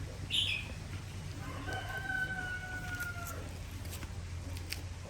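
A rooster crowing once, a single drawn-out call of nearly two seconds that sags in pitch at the end, with a few faint clicks and a steady low hum underneath.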